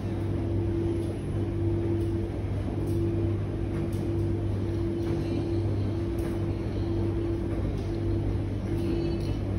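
Electrolux W4250S washing machine tumbling a double duvet and sheets in its drum during the prewash. A steady low motor hum runs under a mid-pitched whine that cuts in and out every second or so, with faint light knocks from the turning load.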